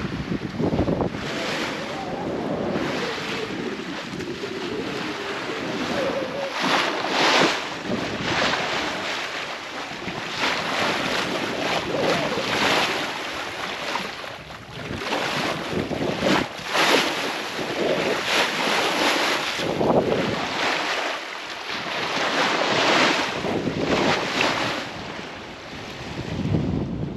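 Water rushing and splashing along a sailing yacht's hull as it sails through ocean swell, swelling and easing in surges every second or two, with wind buffeting the microphone.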